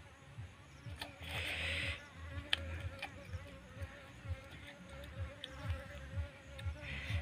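An insect buzzing in a steady, slightly wavering drone over a low irregular rumble. A brief breathy hiss comes a little over a second in, the loudest sound here, and a few faint sharp clicks follow.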